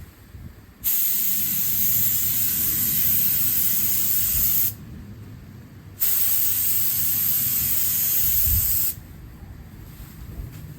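Paint spray gun hissing as it sprays clear coat onto a car bumper: two long passes of about four and three seconds, each starting and stopping sharply, with a short pause between.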